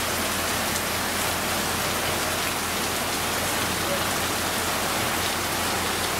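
Heavy tropical downpour: dense rain falling steadily on the street and roofs, an even hiss with no letup.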